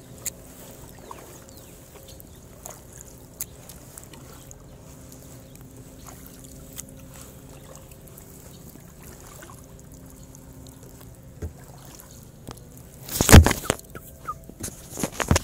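Kayak paddling: quiet strokes with water trickling off the paddle blade and a few small clicks. About thirteen seconds in there is a loud, sudden splash or knock, followed by a few smaller ones near the end.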